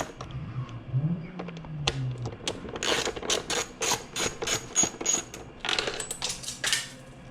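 Quarter-inch ratchet clicking in short irregular runs as it is worked back and forth, backing out a Phillips screw.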